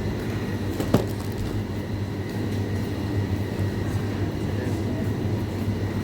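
Steady low hum of supermarket ambience, with one sharp click about a second in.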